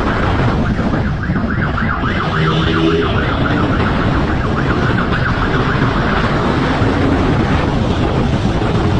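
Motorcycle running at speed with heavy engine and wind noise, and a fast-warbling siren from about a second in until about six seconds in.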